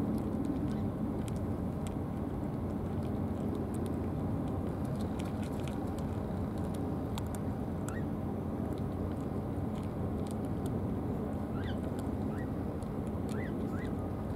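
Steady low outdoor rumble with scattered sharp clicks of a cat crunching dry cat food from a plastic tray. From about eight seconds in, and more often near the end, come a few short rising chirps.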